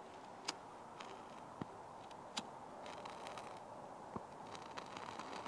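A disposable lighter being struck, with a few faint sharp clicks, then a soft crackling from about three seconds in as the flame lights wood-fibre tinder.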